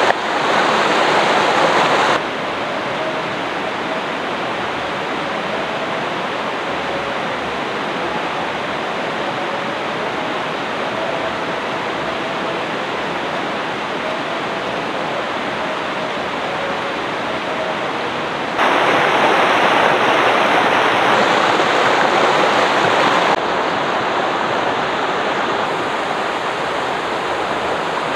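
A river rushing over rocks in rapids, a steady rush of water. It drops in loudness about two seconds in, grows louder again after about eighteen seconds, and eases slightly near the end.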